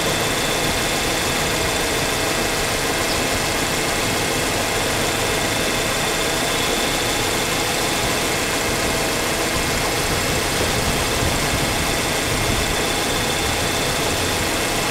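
Ford Ranger engine idling steadily, with a dense, even running noise. The engine is one with a loud noise thought to come from the lifters.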